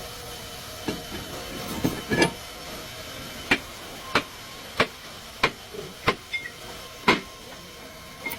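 A series of short, sharp knocks, about one every half-second to second, over a steady hiss.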